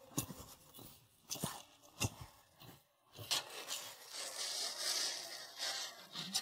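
Hands in disposable plastic gloves mixing and squeezing a wet mash of chopped chilies in a stainless steel bowl: rustling and squishing, with a few sharp taps, and a longer stretch of rustling from about three seconds in.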